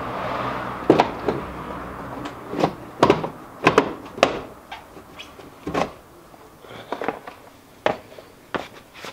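Steel floor jack being shifted and reset under the front of the car: a run of about ten sharp knocks and clunks at irregular intervals.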